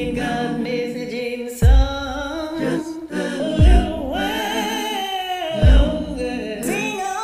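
A woman singing a slow gospel spiritual over a karaoke instrumental backing track, with a deep beat about every two seconds.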